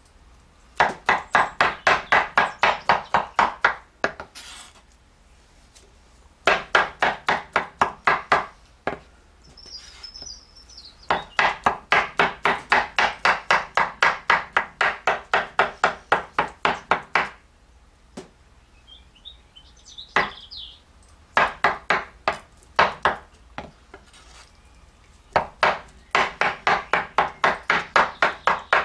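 Knife chopping rapidly on a cutting board, about five strokes a second, in several runs of a few seconds with short pauses between them. Faint bird chirps can be heard in the pauses.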